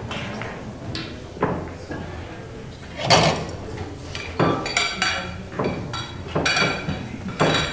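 Hard resin pool balls clacking against one another, about ten sharp clicks at uneven intervals with the loudest about three seconds in. These are typical of the balls being gathered and racked between games.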